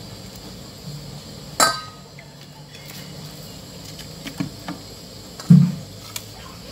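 Cookware clatter at a wok: a sharp metallic clink with a brief ring about a second and a half in, a few light ticks, then a dull low thump near the end that is the loudest sound, over a faint low hum.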